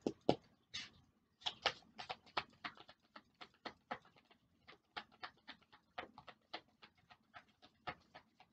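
Tarot cards being shuffled by hand: a faint string of short card slaps and clicks, about four a second.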